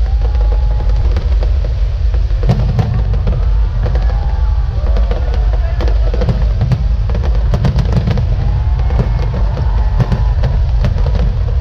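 Aerial fireworks bursting overhead: a dense run of sharp cracks and bangs, thickest about two and a half seconds in and again around seven to eight seconds, over a constant deep rumble.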